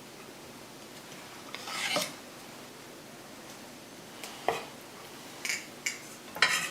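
Serving utensil scraping and knocking against cookware and a plate while food is dished up: one drawn-out scrape about two seconds in, then a handful of sharp clinks and taps near the end.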